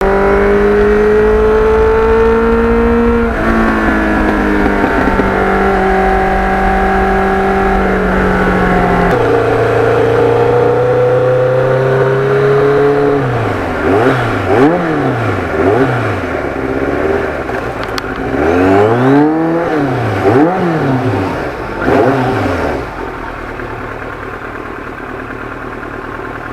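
Motorcycle engine running at held, steady revs that step down in pitch twice, then revved up and down in several quick throttle blips, settling to a quieter steady idle near the end.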